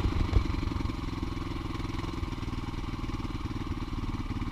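Small engine of a buggy running steadily with a rapid, even putter as it pulls a tow chair.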